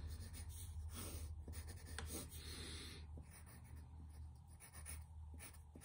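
Faint scratching of quick drawing strokes on a sheet of paper, over a faint steady low hum.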